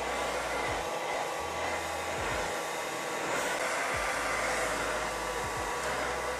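Handheld blow dryer running steadily on its low, warm setting, blowing air down onto a synthetic wig.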